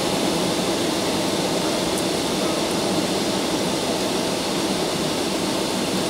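Steady cabin noise inside a Boeing 757-200 on the ground: an even hum of the engines mixed with the hiss of the air conditioning.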